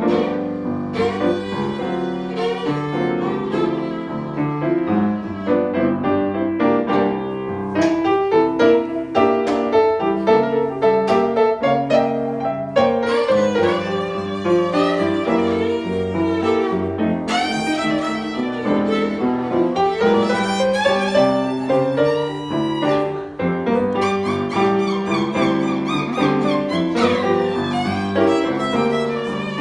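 Instrumental blues played on violin and piano: piano chords underneath, with the fiddle taking a lead line that slides and bends between notes from about halfway through.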